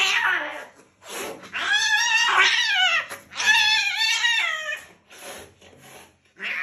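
Angry domestic cat yowling in distress at being restrained: two long wavering yowls, after the tail of another at the very start.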